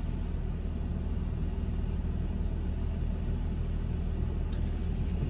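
Steady low rumble of a car heard from inside its cabin as it rolls up to a drive-thru.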